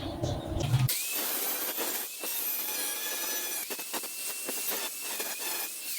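Angle grinder working steel: a harsh grinding hiss with a steady high whine that starts about a second in. Near the end the whine falls as the disc spins down.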